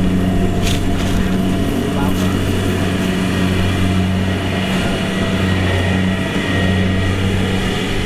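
Kubota rice combine harvester running steadily while it cuts and threshes rice: a constant engine drone with a low hum.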